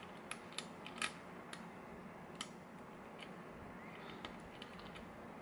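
Small metallic clicks and taps of a short hook pick and tension wrench working the pins of a GeGe lock: several sharp ticks in the first two and a half seconds, the loudest about a second in, then a few fainter ones later.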